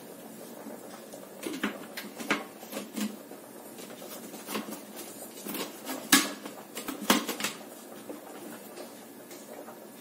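Irregular clicks and knocks of plastic being handled on a countertop blender, its lid taken off and fitted back on while the motor is off. The sharpest knocks come about six and seven seconds in.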